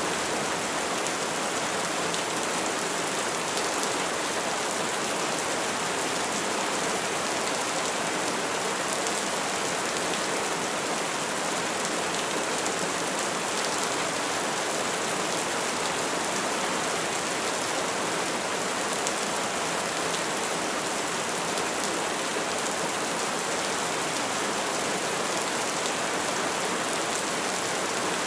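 Steady rain, an even, unbroken hiss with no thunder.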